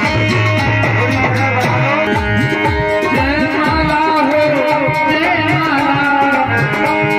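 Instrumental music of a Hindi devotional song: a plucked-string lead melody with wavering, sliding notes over a steady drum beat and bass.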